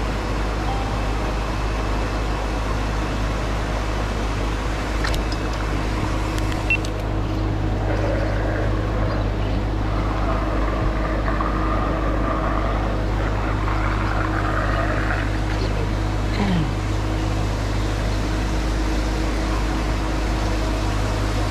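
Steady low mechanical drone of a fish-pond aerator running and churning the water. A short falling squeak comes about two-thirds of the way through.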